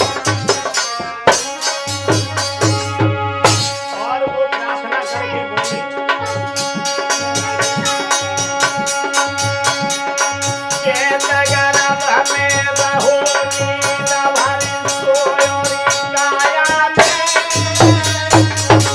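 Harmonium and dholak playing a folk bhajan tune: sustained harmonium chords over a steady, regular dholak beat.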